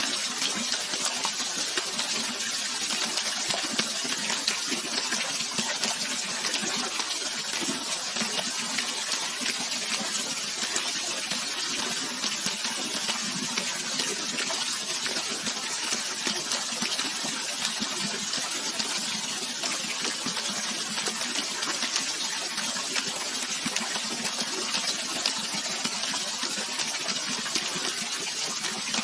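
Running water rushing steadily without a break, a bright hiss of splashing water with little low rumble.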